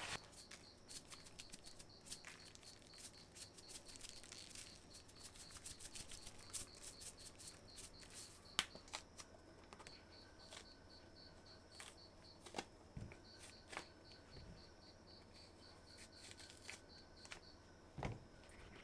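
Quiet food-prep handling: soft rustles of paper towel, then scattered small clicks and rustles of hands tearing king oyster mushrooms apart on a wooden cutting board. The loudest is a sharp click a little past halfway. A faint, high, evenly pulsing chirp runs underneath.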